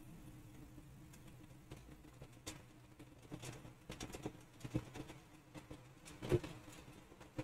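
Faint, scattered short clicks, about half a dozen over several seconds, the strongest a little past six seconds in.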